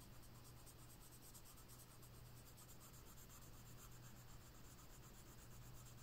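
Faint scratching of a Faber-Castell Polychromos colored pencil shading on paper in short repeated strokes, over a steady low hum.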